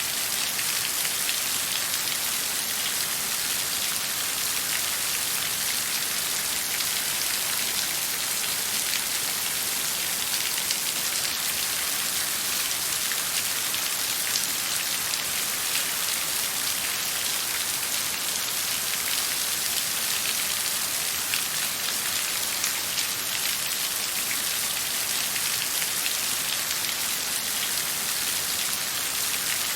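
Steady rain falling on a surface: a dense, even hiss of many small drop ticks, with no thunder.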